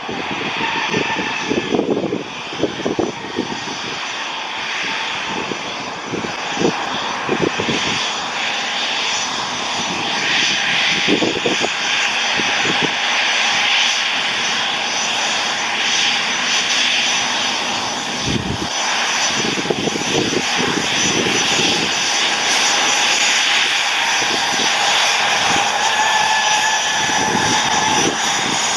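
Dassault Falcon 7X business jet's three Pratt & Whitney PW307A turbofans running, a steady roar with a high whine, slowly growing louder.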